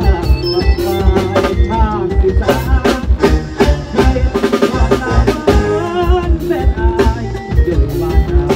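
Electric guitar playing an Isan phin-style lead melody with bent, wavering notes, over a drum kit keeping a steady beat: Thai procession-band (sai hae) mor lam music.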